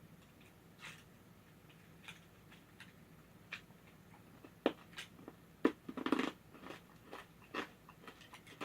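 Someone chewing candy: quiet, irregular clicks and small crunches, coming more often and louder about halfway through.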